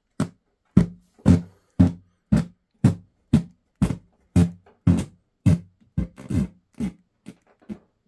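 Music played through Creative GigaWorks T40 computer speakers: a run of sharp, bass-heavy plucked or drum hits about two a second, starting out of silence and growing fainter near the end.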